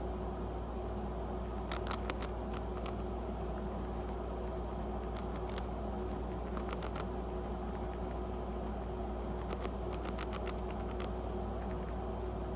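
Pet rat crunching a cracker: short bursts of quick, crisp clicks as its teeth bite through, repeated several times with pauses between, over a steady low background hum.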